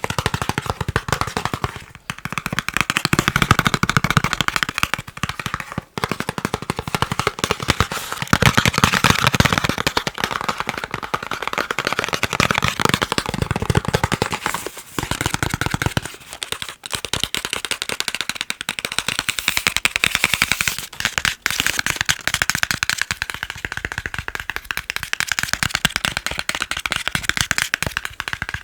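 Fast tapping on chocolate: a dense, continuous stream of rapid taps, broken by a few brief pauses.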